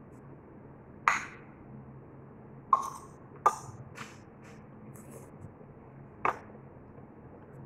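A metal spoon clicking against a ceramic plate while eating, with four louder clinks among a few fainter ones.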